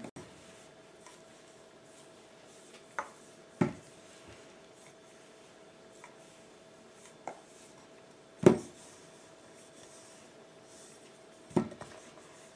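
Stainless steel rolling pin rolling dough out thin on a floured stone countertop: quiet rubbing broken by a few sharp knocks as the pin bumps the counter, the loudest about two-thirds of the way through.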